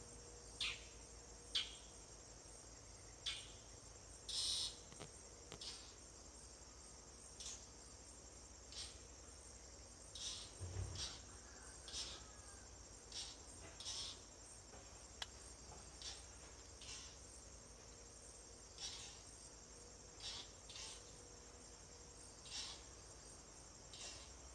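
Faint, steady high-pitched drone of insects such as crickets, with short high chirps every second or two.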